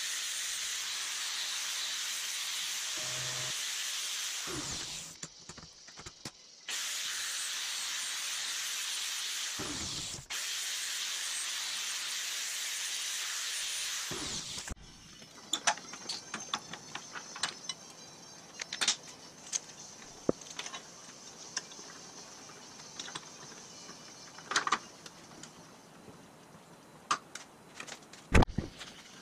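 Angle grinder grinding a small steel part, a steady hiss-like grinding that breaks off briefly twice and stops about halfway through. After that, scattered clinks and taps of small metal parts being handled, with one sharp knock near the end.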